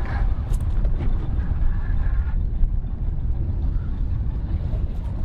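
Wind buffeting the microphone aboard a small open boat at sea, a steady low rumble.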